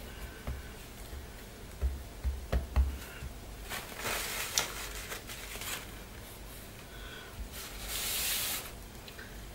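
Hands handling a craft journal cover: a few soft knocks about two seconds in, then two spells of rustling and scraping as the book is shifted and turned on the table.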